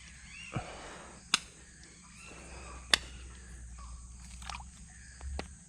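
Quiet outdoor background with a soft thump about half a second in, then two sharp clicks about a second and a half apart.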